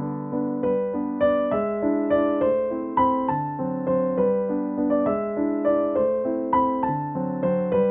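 Background piano music: a calm melody of notes struck a few times a second, each fading before the next, over held lower notes.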